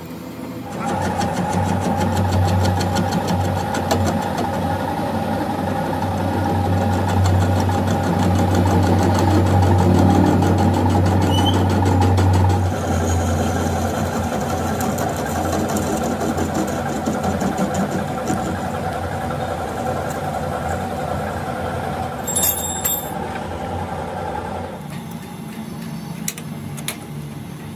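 Metal lathe running with a crankshaft spinning in its chuck while a cutting tool turns down the crankshaft's end journal: a steady hum and whine start about a second in, the low hum drops out about halfway, and the machine runs down a few seconds before the end. A brief high-pitched tone sounds near the end.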